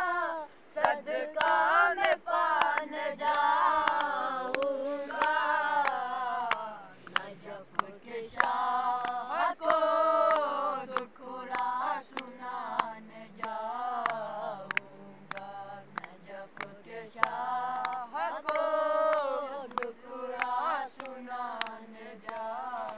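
A group of boys singing a devotional qasida together unaccompanied, with their hand claps keeping time.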